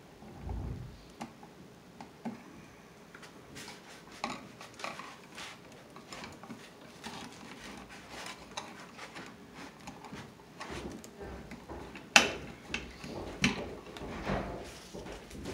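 Electrical wires and hand tools being handled at an outlet box: scattered small clicks, taps and rustling, with a dull bump near the start and one sharp click about twelve seconds in.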